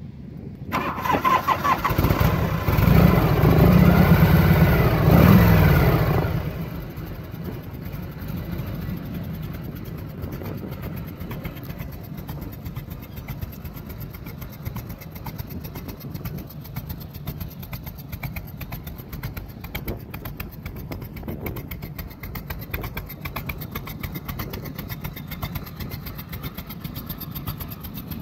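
Cold start of a 1982 Harley-Davidson FLT Tour Glide's Shovelhead V-twin: it starts about a second in and is revved up and down for a few seconds, then settles to a steady idle.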